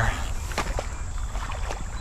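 A few short steps and sloshes of someone wading into muddy creek water, with the sharpest pair about half a second in and another near the end, over a steady low rumble.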